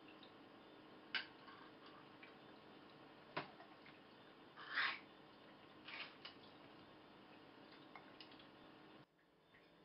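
American Staffordshire terrier eating: a few scattered, separate crunches and clicks of food and bowl, the loudest about five seconds in.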